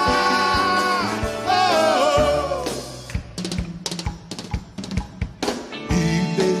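Live big band with brass, drums and singers: a held chord, then a sliding sung phrase, after which the band drops away to a few scattered drum and percussion hits for about three seconds before the full band comes back in near the end.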